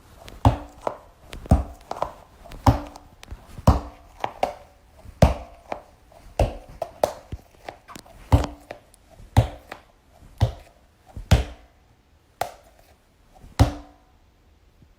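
Novelty toy balls striking a hard surface over and over, a sharp knock about once or twice a second, some knocks leaving a brief low ring; the knocks stop about a second before the end.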